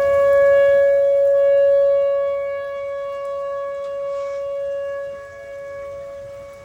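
Outdoor tornado warning siren sounding one steady, unwavering tone, growing gradually fainter over the last few seconds.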